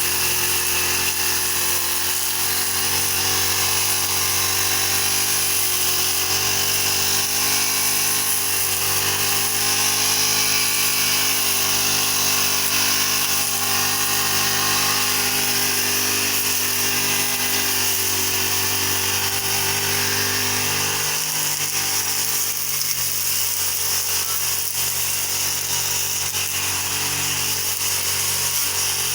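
Brush cutter (motorised grass trimmer) engine running steadily under load while cutting grass, its pitch wavering slightly; late on its lowest hum drops out while the running continues.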